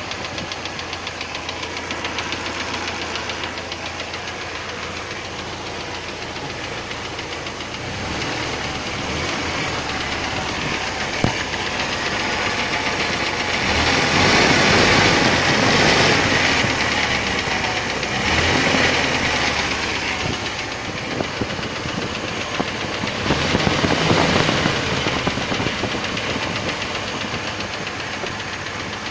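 ZMZ-406 2.3-litre inline-four petrol engine running with a persistent knock, getting louder twice, about halfway through and again later. The owner has not found the cause of the knock.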